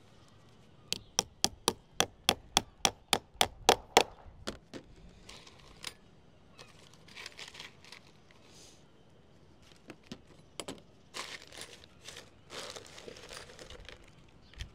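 A quick run of about a dozen hammer strikes, about four a second and getting louder, then scattered lighter knocks and rustling as lead capping is fixed to a parapet wall.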